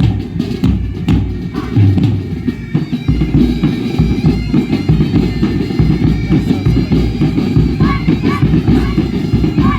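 Loud music with drums, its sound heavy in the low end, with a few short melodic notes higher up near the end.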